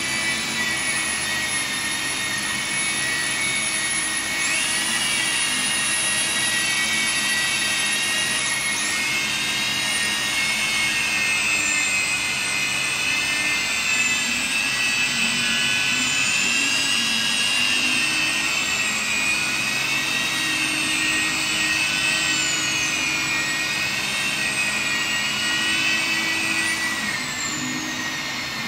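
Small handheld electric rotary polisher with a felt pad running on wet glass, polishing out scratches: a steady high-pitched motor whine. Its pitch wavers as the pad is pressed and eased, and it slides down near the end.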